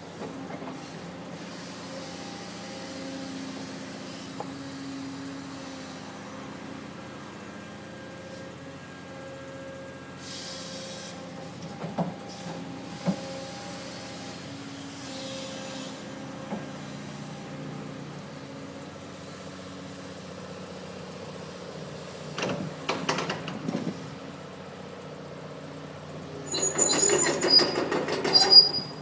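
Doosan DX300 excavator's diesel engine running steadily. There is a short hiss about a third of the way in and a few single metal clanks. Near the end comes a loud spell of metal clattering and clanking.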